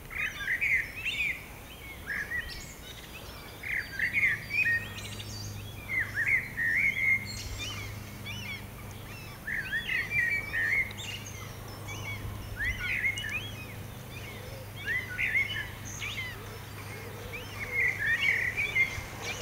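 A songbird singing short warbled phrases, one every couple of seconds, over a faint steady low hum.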